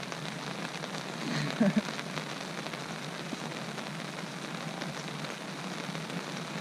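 Steady rain falling hard, an even hiss of drops, with a brief louder sound about a second and a half in.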